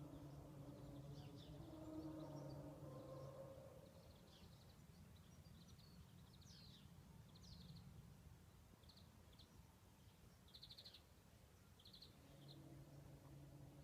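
Faint low droning hum of the unexplained 'sky sound' kind, made of a few steady tones. It fades out after about four seconds and swells back near the end. Small birds chirp throughout.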